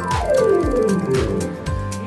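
Roland RD700NX digital stage piano played through an external speaker, tested after a key-velocity repair: many keyboard notes with a fast descending run about half a second in, over a steady drum beat.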